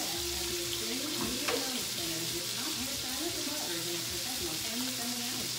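A pan of potatoes with onions and jalapeños frying on the stovetop, a steady sizzling hiss. Faint voices in the background, and a single sharp click about a second and a half in.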